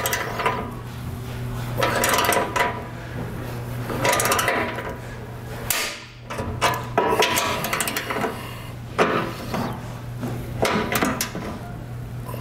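A torque wrench tightening bolts in steel brackets: short bursts of ratcheting and sharp clicks at uneven intervals as the hardware is torqued to spec. A steady low hum runs underneath.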